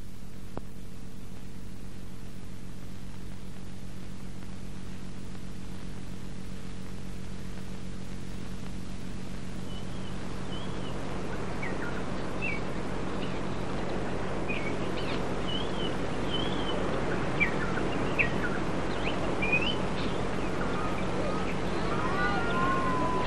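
A steady low hum with hiss, then outdoor ambience fading in from about ten seconds in, with many short, quick bird chirps and whistles that grow louder and more frequent toward the end.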